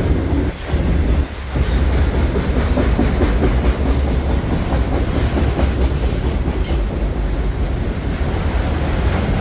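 Long freight train of autorack cars rolling past: a steady heavy rumble, with the wheels clicking over the rail joints.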